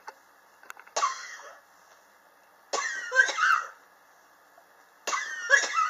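A person coughing three times, about two seconds apart, the second and third coughs each coming in two quick bursts. It is a chronic cough that has gone on for years.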